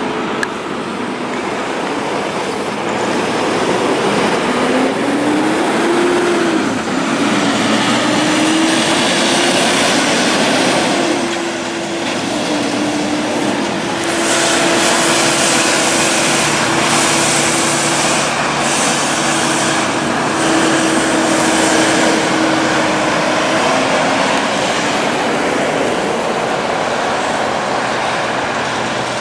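Heavy diesel trucks towing double trailers passing close on a highway: a steady engine drone that glides up then down in pitch, under tyre roar that is strongest in the middle.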